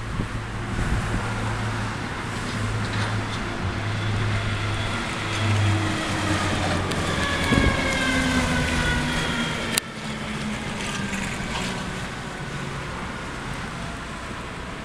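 Fire engine driving past without its siren: the diesel engine runs under load, and a whine falls slowly in pitch as the truck passes, loudest about halfway through. A single sharp click near the end of the pass.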